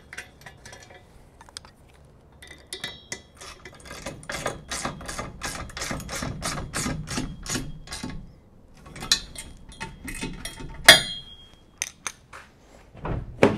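Bolts being tightened on the steel bike-mounting arms of a van's rear carrier: a run of quick metallic wrench clicks, then a single loud metal clank with a brief ring near the end.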